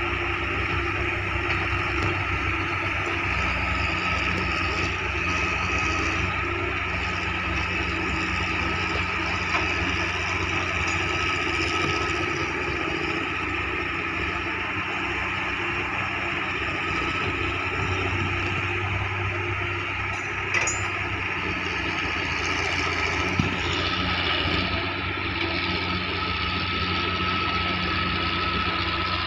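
Excavator diesel engine running steadily, with a couple of short knocks late on.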